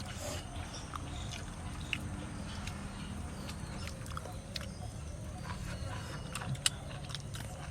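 A person eating rice and duck curry by hand: scattered small clicks and mouth sounds, one sharper click near the end, over a steady low background noise.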